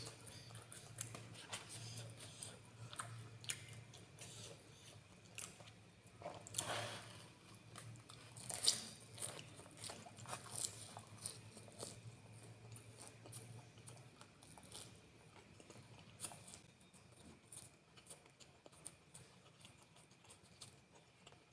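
Close mouth sounds of a person eating noodles: steady chewing with small wet clicks and occasional crunches, the loudest about nine seconds in.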